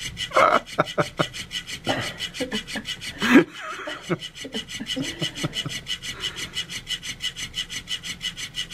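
Electric flopping fish cat toy running, its motor-driven tail flapping against the fabric cat bed in a steady rhythmic rubbing, several strokes a second. A brief louder sound comes a little over three seconds in.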